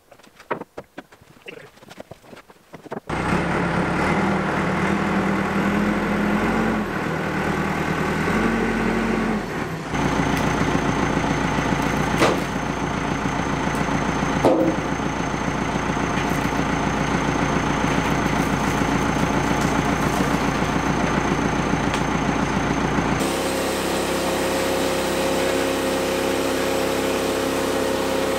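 Light knocks and scuffs, then a tractor engine running steadily while its front loader handles a log, its pitch rising and falling briefly. Near the end the sound changes to a different steady engine note, the band sawmill's engine idling.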